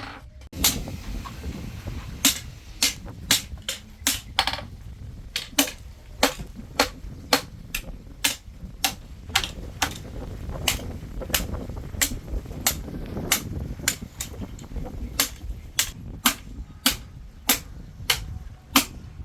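Blacksmith's hand hammer striking steel on an anvil while forging knives: sharp blows at about two a second, unevenly spaced, over a low rumble.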